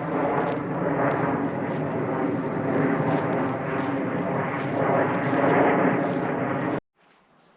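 A loud, steady engine drone that cuts off abruptly near the end.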